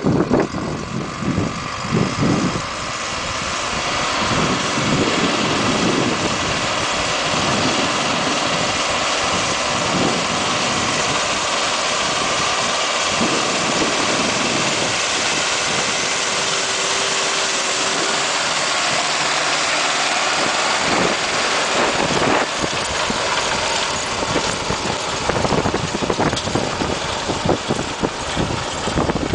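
Zetor Proxima 90 tractor's diesel engine running steadily under load while pulling a seed drill, with wind buffeting the microphone near the start and over the last few seconds.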